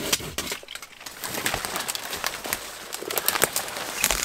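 Dry dead branches and twigs cracking and snapping irregularly as they are broken off and dragged through brush and leaf litter.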